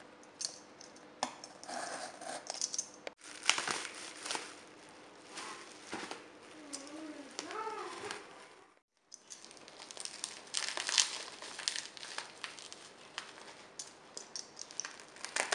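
Plastic parcel wrapping and bubble wrap crinkling and crackling as packages are handled and cut open, in irregular bursts broken by two short silences.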